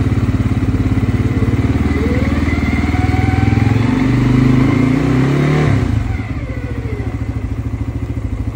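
The single-cylinder engine of a 2023 CFMOTO CForce 600 ATV idling. It is revved up gradually from about three seconds in and drops back to idle about six seconds in.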